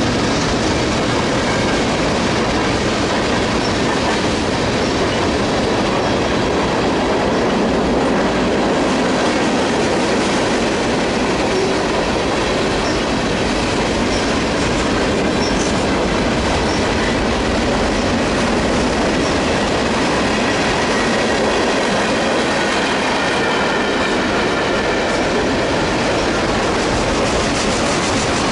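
Freight cars of a mixed freight train (boxcars, covered hoppers and tank cars) rolling past close by. A steady, loud noise of steel wheels on rail, with faint high squeals now and then.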